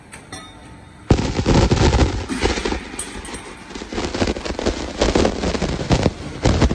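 Automatic split clamp making machine running: after about a second of quiet it starts suddenly into dense, rapid clattering and banging as flat steel bar is punched, bent and cut, with a steady hum underneath.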